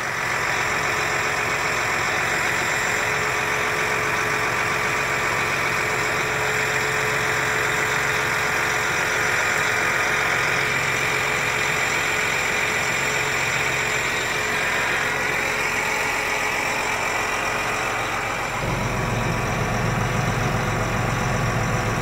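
John Deere tractor's diesel engine running steadily, heard from inside the cab. About three-quarters of the way through, its low note gets suddenly stronger.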